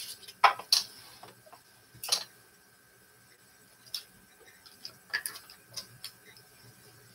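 Light, scattered clicks and taps, about half a dozen, of painting supplies being handled at the work table: brushes and tools knocking against the palette and containers.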